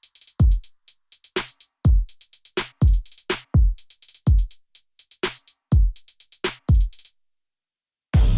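Background electronic music: a drum-machine beat of kick drums and hi-hats that stops about seven seconds in, followed by a moment of silence and a fuller piece of music starting near the end.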